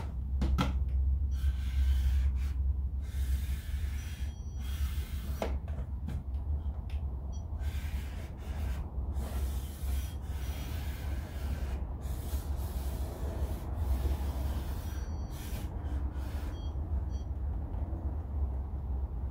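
Handheld stud finder sliding and rubbing over the painted soffit and wall, with a few faint short high beeps now and then, over a steady low hum.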